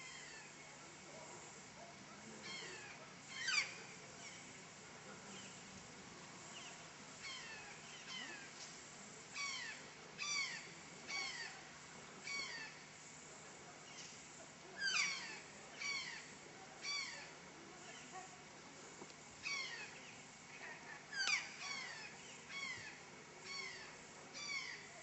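Birds calling over and over in open woodland: short, sharp notes that sweep steeply downward, coming singly and in quick runs of two or three, over a faint steady hum.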